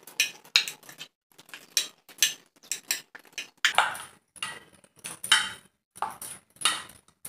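Hand mixing a soft vegetable mash in a steel bowl: glass and metal bangles clink against each other and the bowl rim while the fingers squish and scrape the food against the metal, in irregular strokes a couple of times a second.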